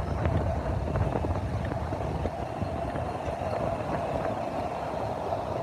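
Sea waves washing steadily up a flat sandy beach, with wind rumbling on the microphone.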